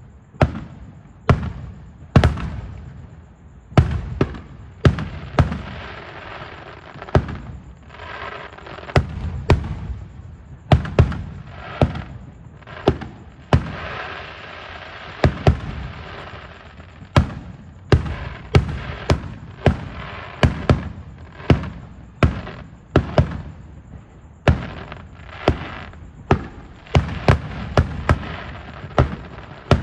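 Fireworks going off in a steady string of sharp bangs, often one or two a second, with a stretch of crackling about halfway through.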